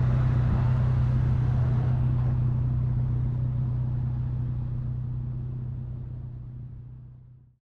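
Nissan 370Z's 3.7-litre V6 idling steadily through an aftermarket stainless-steel axle-back exhaust, heard right at the tailpipe as a deep, even drone. It fades out near the end.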